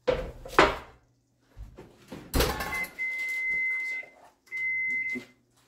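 Two sharp knocks, then a kitchen appliance's electronic beeper sounding one long steady high beep and, after a short gap, a second shorter beep.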